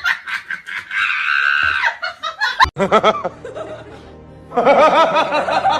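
A person laughing in rapid bursts over music, with a sudden cut about two-thirds of a second before the middle, after which the laughter picks up again and grows louder near the end.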